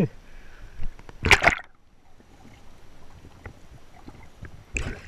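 Seawater sloshing and splashing around a camera at the sea surface, with two loud splashes, about a second in and near the end, and a duller, muffled stretch between them.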